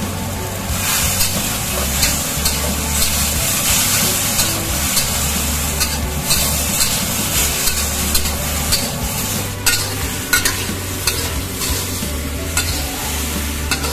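Cauliflower and bell peppers sizzling in a hot hammered wok as they are stir-fried with a metal spatula, the spatula scraping and clicking against the pan. A few sharper clicks come about ten seconds in and again near the end.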